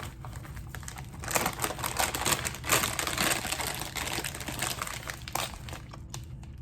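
Plastic pretzel snack bag crinkling as it is handled, a dense crackle from about a second in that dies away near the end.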